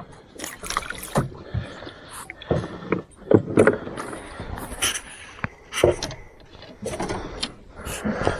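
Irregular knocks, taps and scrapes of handling in a small fishing boat, as a freshly caught fish and gear are dealt with.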